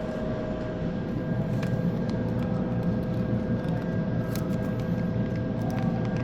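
Steady mechanical hum with two steady tones over a low rumble, and a few faint clicks.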